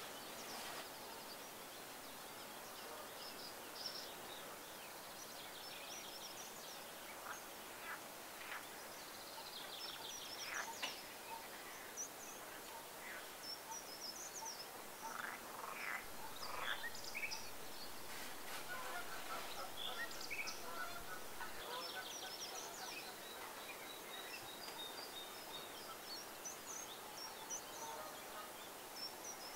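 Several wild birds calling, with many short high chirps and trills throughout and a cluster of louder, lower calls about halfway through, over a faint steady outdoor background.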